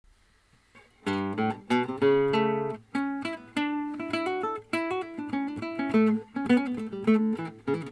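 Solo nylon-string classical guitar playing a Swedish polska, a picked melody over bass notes, starting about a second in.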